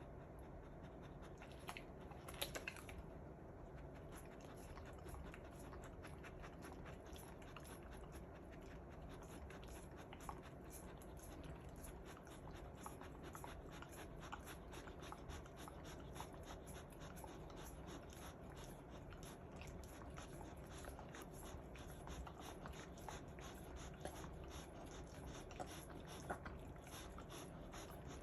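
A Kishu dog chewing and licking a hard frozen Azuki Bar ice pop: a long run of small wet clicks and crunches, with a few louder clicks about two seconds in.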